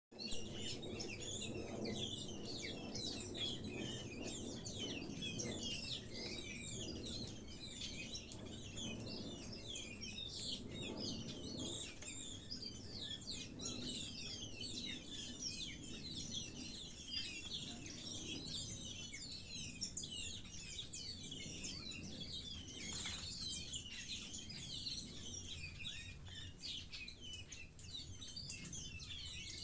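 Many small birds chirping and twittering together in a dense, unbroken chorus of short, overlapping high calls, over a low, steady background noise.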